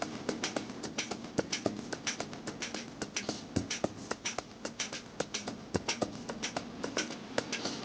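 Rapid, irregular sharp taps and clicks, several a second, as of hands tapping and working on a body.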